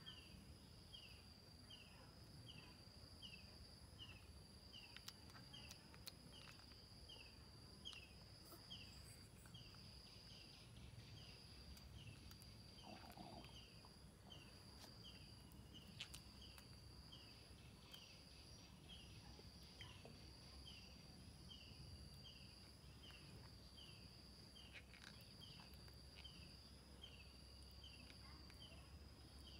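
Faint outdoor ambience, close to silence: a steady high insect trill with a short falling chirp repeating a little more than once a second, over a low rumble and a few faint ticks.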